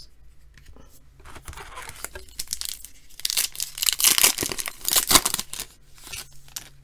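Foil wrapper of a 2013 Panini Certified football card pack crinkling and tearing as it is ripped open by hand, loudest in the middle.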